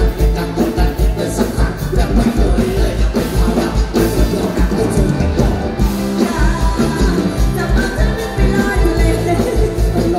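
A live band playing loud, upbeat music through the stage speakers, driven by a steady drum and bass beat.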